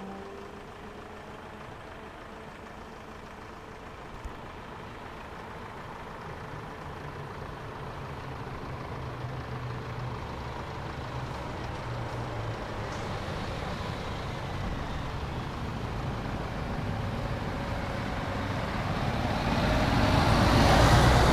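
A car approaching on the road, its engine and tyre noise growing steadily louder until it is close by near the end.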